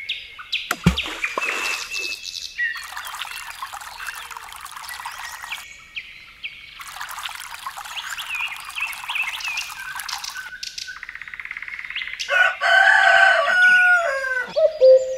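A rooster crowing loudly near the end, its call falling in pitch. Before it come bird chirps over two long stretches of hissing, rushing noise that start and stop abruptly.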